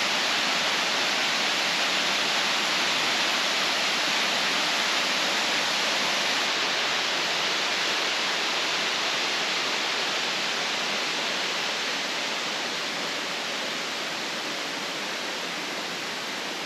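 Waterfall plunging: a steady rushing hiss of falling water, easing off a little near the end.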